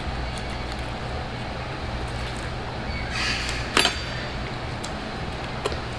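A metal fork clinks once against a metal sheet pan, with a ringing ping just before the four-second mark, right after a short rustle of paper. A fainter click follows near the end, over a steady low hum.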